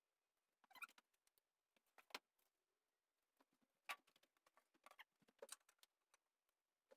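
Near silence broken by faint, scattered taps and short scrapes, the loudest about 1, 2 and 4 seconds in and a cluster around 5 seconds: hands and a level handling a rigid polyiso foam insulation board as it is fitted.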